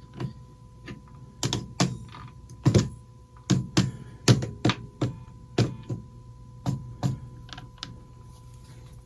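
A run of irregular sharp clicks and light knocks, about fifteen over several seconds and thickest in the first half, over a faint steady tone.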